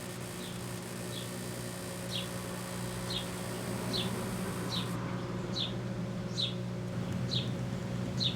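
Microwave oven running with a steady low hum while heating a sealed can of biscuits. Over it, a short high chirp that drops in pitch repeats about every two-thirds of a second, getting louder toward the end.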